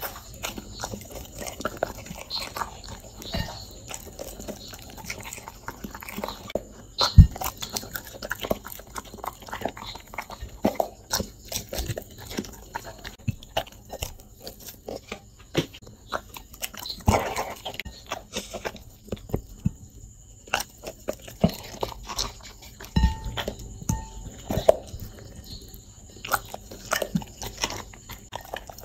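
Labrador chewing and biting food up close: wet, crunchy mouth sounds and many irregular clicks of teeth, with a few sharper knocks, the loudest about seven seconds in.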